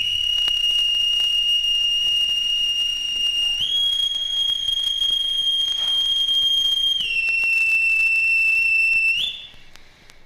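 A loud, high, steady whistle held for about nine seconds. It steps up in pitch about a third of the way in, drops back a little lower near two-thirds, then jumps up briefly just before it cuts off. Faint scattered clicks lie underneath it.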